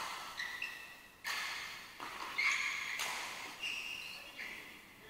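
Badminton rally: rackets strike the shuttlecock about every one and a half to two seconds, each hit sharp and echoing through the hall. Short high squeaks of court shoes on the floor come between the hits.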